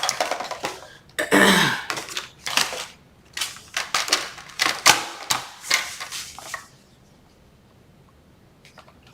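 Cardstock and craft tools being handled on a table: a run of sharp clicks, taps and paper rustles for the first six or seven seconds.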